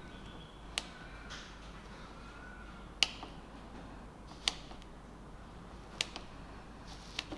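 Stanley socket ratchet clicking five times, sharply and separately, about every second and a half as the handle is swung slowly. Each click is the pawl dropping into the next tooth, about 5 degrees of handle swing apart.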